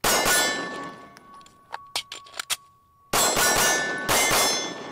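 Anderson Kiger 9C Pro 9mm pistol fired in quick strings of shots, each followed by a loud metallic ringing like struck steel targets, with a lull of about two seconds between the strings.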